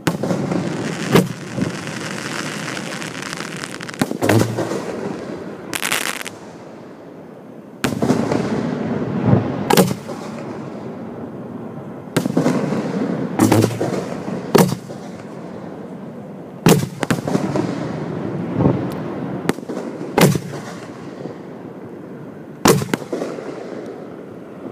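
Aerial display fireworks shells firing and bursting, a string of sharp bangs every second or two, some in close pairs, with a loud rushing noise between them.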